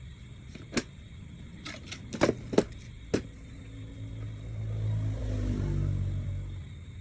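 A quick run of sharp knocks and taps, about seven in two and a half seconds, as in roof repair work. Then a motor vehicle's engine hum rises, is loudest about five to six seconds in, and fades, like a vehicle passing by.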